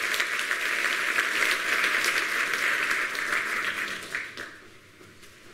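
Audience applauding, the clapping fading out about four seconds in.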